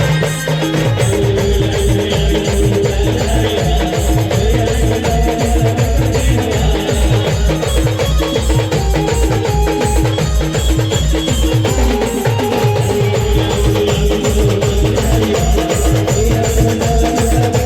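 Band playing Timli folk dance music: a fast, driving drum beat under a steady, held melody line.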